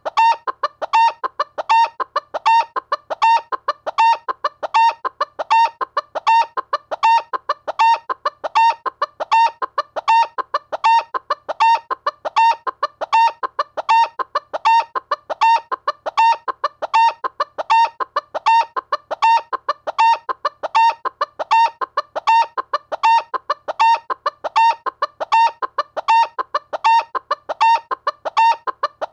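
Chicken clucking: a continuous run of short clucks repeating at an even pace.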